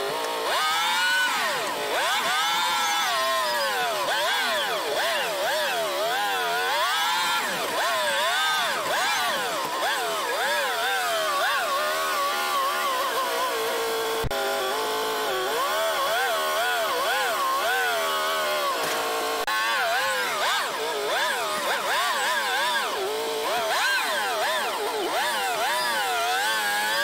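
An old front-end loader's engine running hard while it shoves a truck chassis, its pitch rising and falling every second or so as throttle and load change. A single clunk comes about halfway through.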